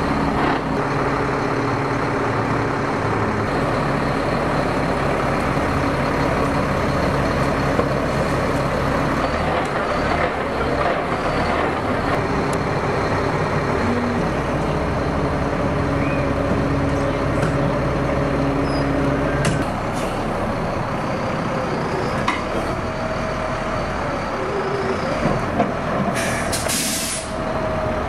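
Tow truck's engine running steadily while the wrecker's hydraulic controls are worked. Its note changes about two-thirds of the way through, and a short hiss comes near the end.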